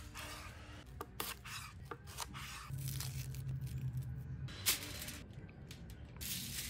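Knife cutting through a head of garlic on a cutting board in several sharp strokes, then the dry papery skin of a shallot being peeled and torn away, with a crinkle near the end.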